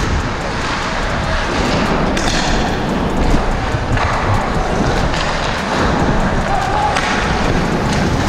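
Ice hockey play heard from a player-worn GoPro: a steady rushing of skating noise with repeated short knocks of sticks, puck and boards.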